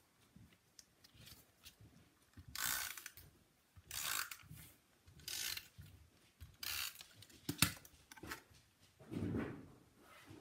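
Paper and cardstock being handled and rubbed on a craft table: a string of short, faint swishes about every second or so, with one sharp click a little past the middle.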